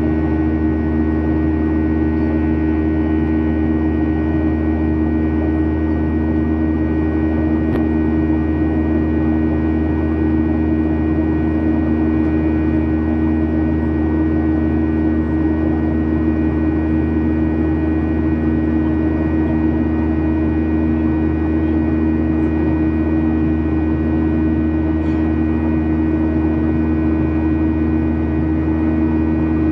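Boeing 737-900ER's CFM56-7B turbofan engines heard from inside the cabin during the climb: a steady drone carrying a hum of several held tones over a low rumble.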